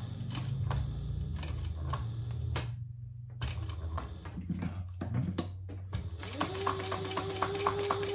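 Sewing machine stitching. At first come slow, uneven single stitches, each a click. About six seconds in the motor speeds up, with a steady hum and an even run of needle strokes at about six a second.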